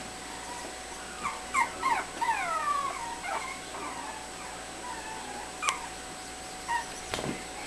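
Shichon dog whimpering: a cluster of short high whines that fall in pitch, about one to three and a half seconds in, followed by a few fainter ones and a couple of light knocks.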